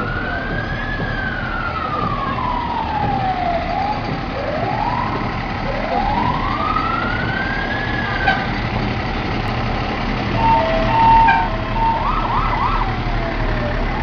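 Fire truck sirens wailing, sliding slowly down and back up in pitch, over the steady low rumble of the trucks' engines. About ten seconds in come a few short beeps and a quick warbling siren before the slow wail starts rising again near the end.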